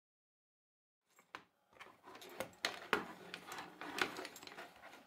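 Cables being handled and plugged into the base of a 3D printer: soft rustling and handling noise with several sharp plastic clicks, starting after about a second of silence.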